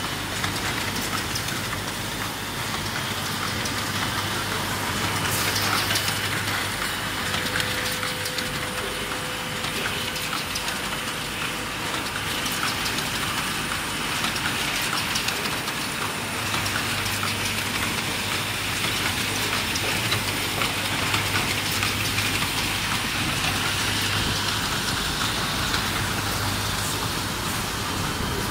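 Automatic plastic hanger clip assembly machine running: a steady dense clatter of many small rapid clicks over a low hum.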